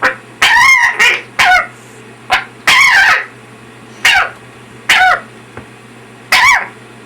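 Patagonian conure (burrowing parrot) giving a series of about nine short, harsh calls at uneven intervals, a few of them longer and drawn out.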